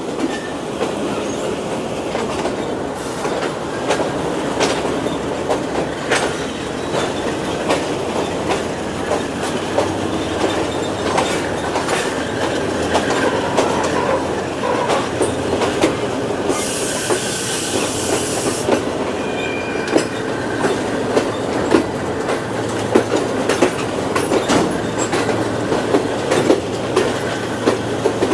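Passenger train running, heard from the coach's open doorway: steady rumble with wheels clicking over rail joints, and a brief high wheel squeal near the end. A two-second burst of hiss comes about 17 seconds in.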